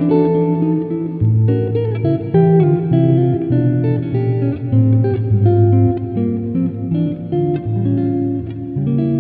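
Solo guitar playing a chord melody: plucked bass notes under a picked melody line, note after note.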